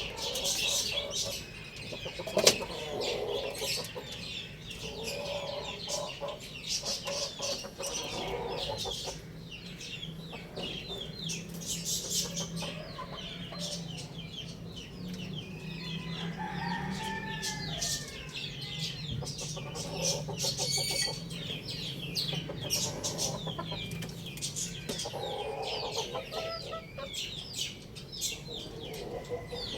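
Chickens clucking, with a rooster crowing once around the middle, over a constant high chirping of small birds. A single sharp knock comes about two and a half seconds in.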